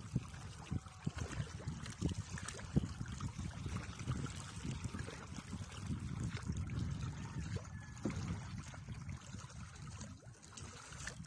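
Water trickling and lapping against the hull of a small wooden outrigger canoe moving over calm water, with scattered light knocks and splashes and no engine.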